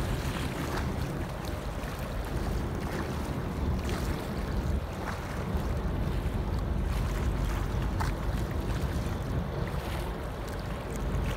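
Wind buffeting the microphone over choppy open water, with waves lapping and splashing and a few brief splashes.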